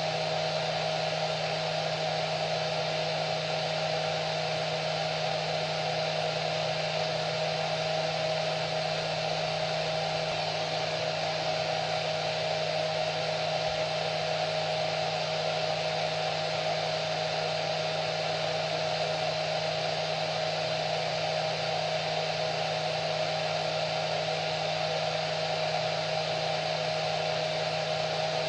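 Hair dryer running steadily: an even whooshing rush of air with a constant motor whine.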